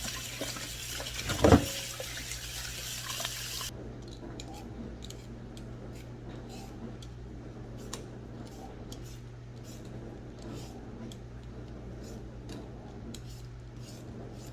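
Kitchen tap running into a sink as potatoes are washed, with one loud knock about a second and a half in. The water stops suddenly about four seconds in, leaving faint, irregular scraping strokes.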